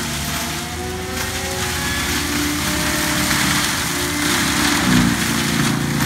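ASV compact track loader running hard while its Gyro-Trac 500 HF hydraulic mulching head grinds into a palm trunk. The engine drone and the chipping noise are steady and loudest about five seconds in.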